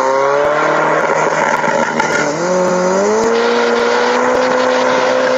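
Car engine revving hard: its pitch climbs, levels off, climbs again about two and a half seconds in, and is then held at high revs.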